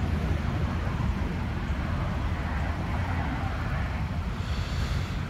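Steady low outdoor rumble of street traffic and wind on the microphone, with a hiss that swells a little around the middle.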